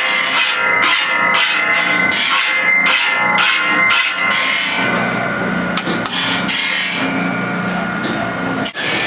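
Steel file strokes across the teeth of a circular shingle saw blade, about two to three strokes a second, with the blade ringing. After about four seconds the strokes stop, leaving a steady hum with a few clicks.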